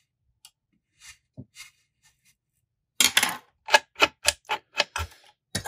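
Clicks and light knocks from a rod-building thread wrapper as thread is wound onto a wooden dowel: a few faint ticks, then about seven sharp, louder clicks at uneven spacing over the last three seconds.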